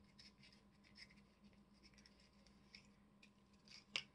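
Very faint handling noise of fingers working small fountain-pen parts and a little cardboard nib box: soft scratches and light ticks, with one sharper click about four seconds in.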